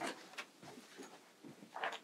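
Faint scattered knocks and rustles of a person handling paper and a bag and getting up from a chair, with a brief louder rustle near the end.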